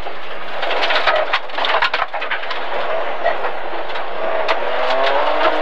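BMW E30 325i rally car on an unpaved stage, heard from inside the cabin: a constant clatter and rattle of knocks from the rough surface and the car's body. Under it the 2.5-litre straight-six engine is running, its pitch climbing in the last second or so as the car accelerates.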